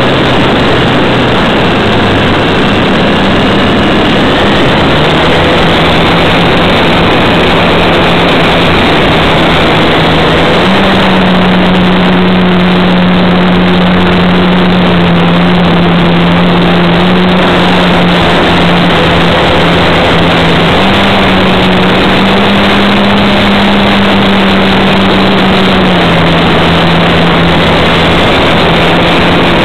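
RC model Cessna's motor and propeller, heard from a camera on board the plane: a loud, steady drone whose pitch steps up and down several times with the throttle, over a constant rushing noise.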